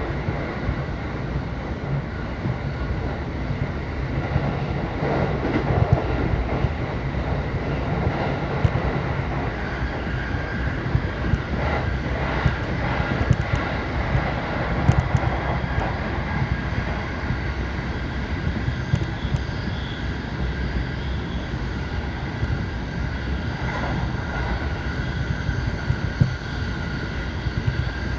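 Commuter electric train running at speed, heard from inside the passenger car: a steady low rumble with wheel-and-rail noise and scattered short clacks.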